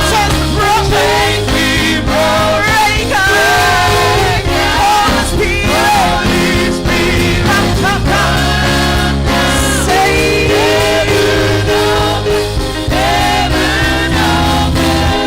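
Gospel choir singing with a live band: voices sliding between held notes over sustained bass notes and a steady drum beat.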